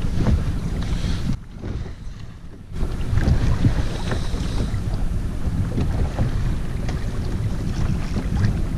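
Wind buffeting the microphone aboard a small open boat, a steady low rumble with a few faint knocks of water against the hull. The noise drops away and turns muffled for about a second, a second and a half in.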